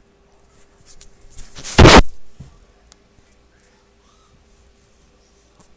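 An added cartoon sound effect: a rushing noise that swells to a loud burst about two seconds in, then dies away.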